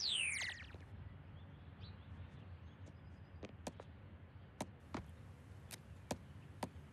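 A cartoon scene-transition whoosh falling quickly in pitch as the Autobot-badge wipe passes, then a quiet background with a few faint, short clicks scattered through the second half.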